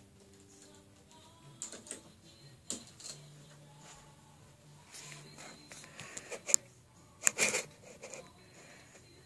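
Scattered small clicks and knocks over faint steady tones, with a sharp click about six and a half seconds in and a short, louder cluster of knocks about a second later.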